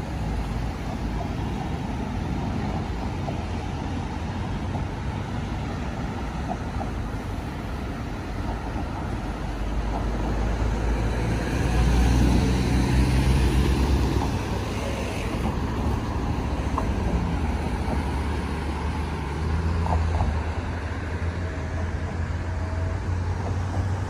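Road traffic: a steady rumble of passing cars and heavier vehicles, with a louder vehicle going by about halfway through and another swell a little later.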